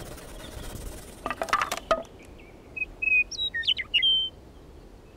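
A few sharp clicks and knocks, then a bird's short song of quick chirps and whistled notes that jump in pitch.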